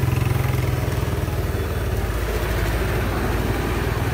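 A motorcycle engine idling close by with a steady, evenly pulsing low putter that eases a little after the first second or two.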